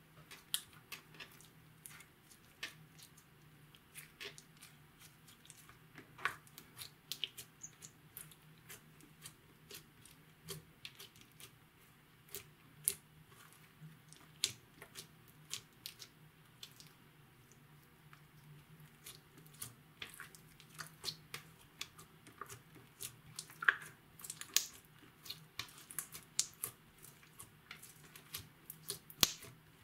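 Red glitter clear slime, with crushed makeup mixed in, being pressed, folded and kneaded by hand. It gives irregular sticky clicks, squelches and small air pops, which come thicker and louder in the second half.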